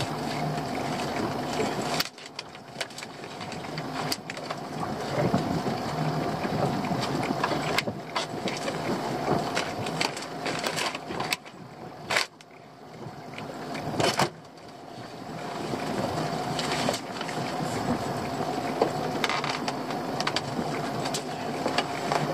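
Small fishing boat's engine running steadily while lobster pots are handled at the gunwale, with repeated knocks and rattles of the pot frames and netting against the boat's side.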